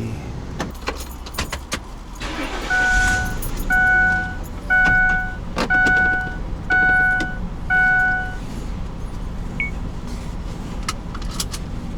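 Six steady electronic beeps, about one a second, each a little under a second long, with a brief hiss just before them and a few sharp clicks.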